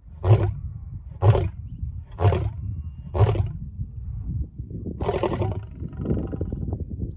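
Male lion roaring, the bout tailing off into a run of short grunting calls about one a second, growing weaker. A brief, rougher call follows about five seconds in.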